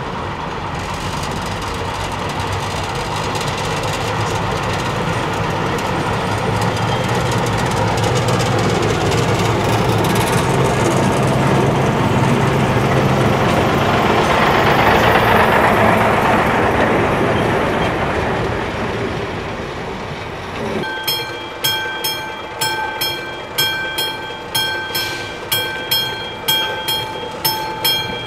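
1934 Škoda "Modrý šíp" M 274.004 diesel railcar pulling away with its trailer car. The engine sound swells as it passes close by, peaks, then fades. About 21 seconds in it gives way to the rhythmic ringing of a level-crossing warning bell, a little over one ring a second, as the railcar approaches in the distance.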